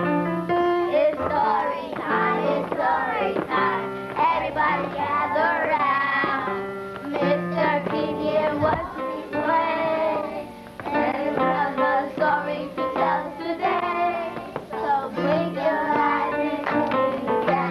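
Opening theme song for a children's show: music with a sung vocal line.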